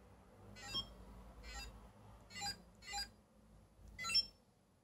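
Commodore CHESSmate chess computer's beeper giving five short electronic beeps as its keys are pressed, about a second apart at first and then closer together. The beeps show that each key press is being registered on the repaired unit.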